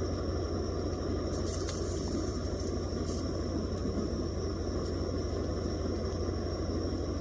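A steady low rumbling drone, with a faint steady high whine above it.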